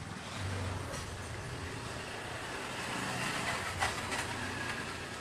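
Charcoal ash and small charcoal bits being shaken through a fine metal mesh strainer over a plastic tub: a steady gritty rustling hiss of the sifting, with one sharp tap about four seconds in.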